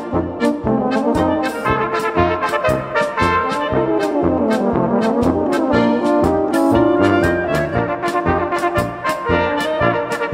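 A Bohemian-style brass band (Blaskapelle) playing a polka, with low bass notes on the beat alternating with off-beat chords in a steady oom-pah rhythm and a brass melody above.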